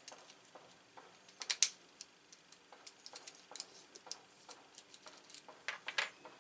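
Brass Euro-cylinder lock parts clicking against each other as they are handled and fitted together by hand: a string of light, uneven ticks, with louder clusters of clicks about a second and a half in and again near the end.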